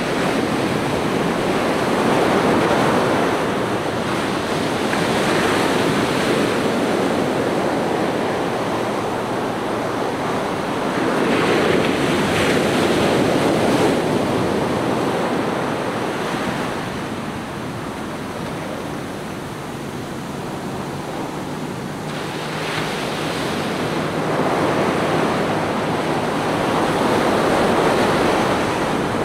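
Ocean surf: small waves breaking and washing up a sandy beach, the sound swelling and easing every several seconds.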